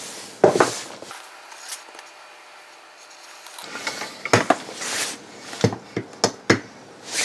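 Small hand tools being handled on a wooden workbench: a short scrape just after the start, a lull, then about half a dozen sharp clicks and taps in the second half.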